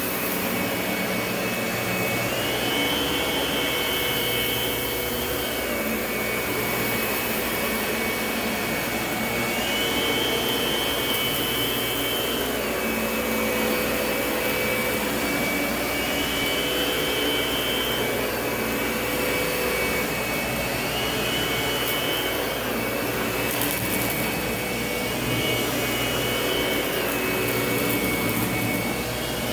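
Lindhaus vacuum cleaner running steadily. Its motor whine rises in pitch for a second or two every five to seven seconds, then drops back.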